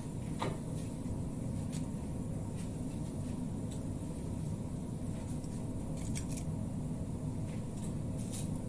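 Food frying in hot oil in a pan, a soft sizzle, with metal kitchen tongs clicking a few times as pieces are turned, over a steady low hum.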